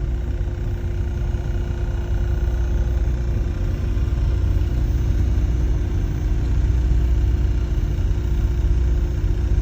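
Idling truck engine: a steady low rumble, with a steady hum of tones above it.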